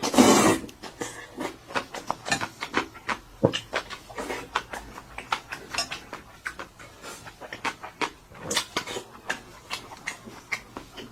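Close-miked eating: rapid, irregular chewing and lip-smacking clicks, with a louder noisy burst lasting about half a second at the start.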